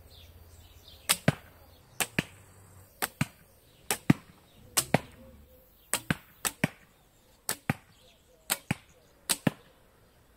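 Homemade bows shot ten times in quick succession, about one shot a second. Each shot is heard as two sharp cracks about a fifth of a second apart: the bowstring released, then the arrow striking.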